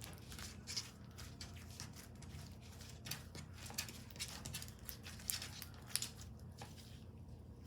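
Slime being squished and stretched by hand, with irregular small clicks and pops over a steady low hum.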